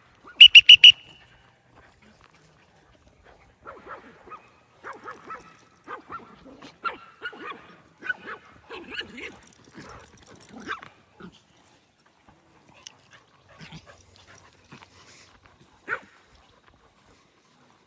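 Dogs vocalising: four very loud, quick, high-pitched yips just after the start, then a run of short yelps and whines, and one last yelp near the end.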